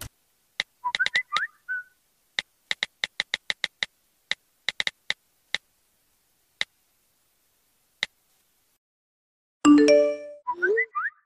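Smartphone touch-keyboard tap clicks, coming irregularly like someone typing a message. Short gliding electronic blips sound about a second in and again near the end, and a brief, louder notification chime sounds shortly before the end.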